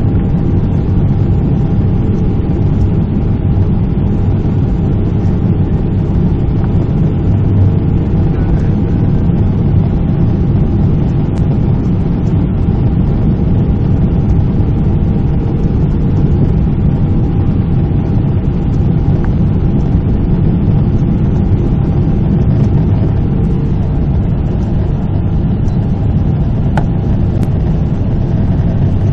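Steady low roar of a Boeing 777's GE90 jet engines and the airflow over the airframe, heard inside the passenger cabin on final approach with the flaps extended. It is an even, unchanging drone with a few faint steady tones above the rumble.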